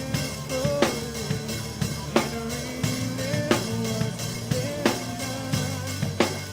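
A band playing a song between vocal lines, with a drum-kit beat of evenly spaced kick and snare hits under sustained melodic lines.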